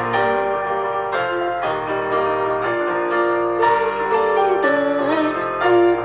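Music: an instrumental stretch of a pop song, keyboard chords over a steady beat.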